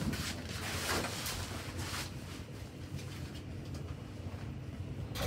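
Lift car in motion: a low steady hum, with a few faint clicks and knocks in the first two seconds.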